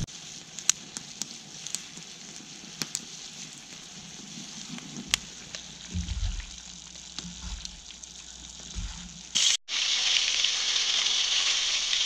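Beaver meat cooking in a cast-iron pan over a log fire: a quiet simmering hiss with scattered sharp pops and crackles. About nine and a half seconds in, after a brief break, a loud steady sizzle of meat frying takes over.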